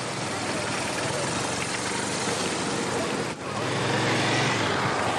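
Motorcycle engine running as the bike rides off, over the steady running of trucks and other road vehicles. A brief drop in the sound comes about three seconds in.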